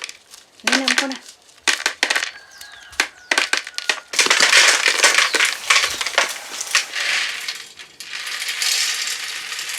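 Kitchen work clattering: scattered clicks and knocks of utensils and vessels, then from about four seconds in a dense, rough crunching and scraping.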